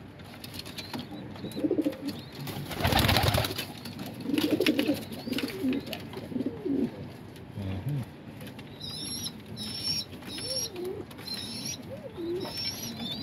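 Domestic pigeons fighting in a nest box: low cooing calls throughout, with a loud rush of wing-flapping scuffle about three seconds in.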